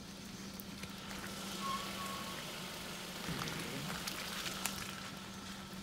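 Light drizzle falling on foliage and a wet dirt road: a soft steady hiss with scattered small drop ticks, over a faint steady hum.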